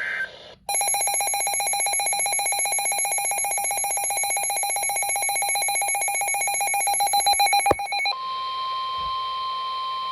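An electronic alert alarm pulsing rapidly for about seven seconds, then a steady single-pitch NOAA Weather Radio warning alarm tone, the signal that a new warning is about to be broadcast.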